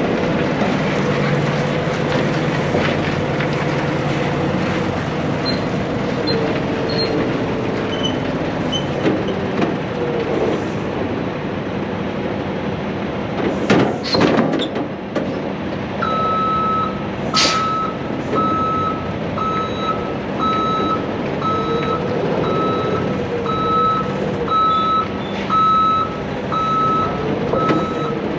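Kenworth semi-truck's diesel engine running as the tractor-trailer maneuvers, with short sharp hisses of air about halfway through. A reversing alarm beeps steadily through the second half, a little faster than once a second.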